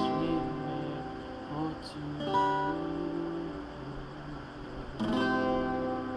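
Acoustic guitar chords strummed and left to ring, three strums about two and a half seconds apart.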